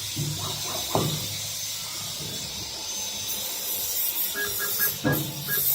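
Hands working the knife holder of a CNC wood lathe, with two sharp knocks, about a second in and near the end, over a steady hiss. A few short, high beeps come just before the second knock.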